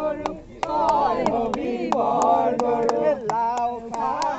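A group of voices singing a chant together, the melody rising and falling, with sharp clicks about three times a second keeping time.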